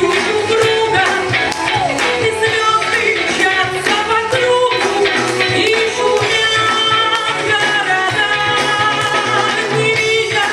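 Pop song with a sung vocal melody over a steady, fast beat, played loud.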